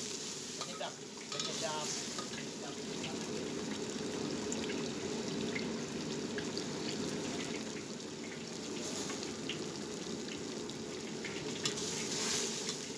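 Seasoned broth boiling and sizzling steadily in a wok, stirred now and then with a spatula.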